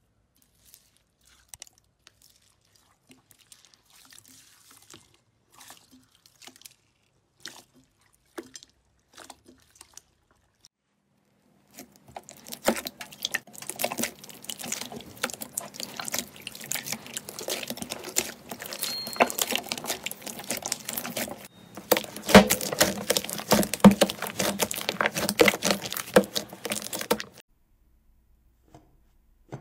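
Slime being worked by hand, making wet clicks and pops. At first there are only sparse soft clicks. From about twelve seconds in comes a dense, louder run of clicking and popping, which stops abruptly near the end.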